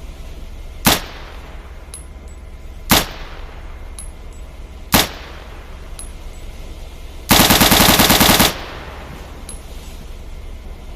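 Gun sound effect of a Type 2 gun: three single shots about two seconds apart, then a rapid automatic burst lasting just over a second.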